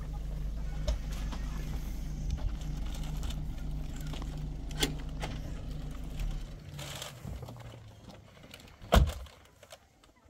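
An engine running with a steady low hum that dies away about seven seconds in, followed near the end by a single loud knock.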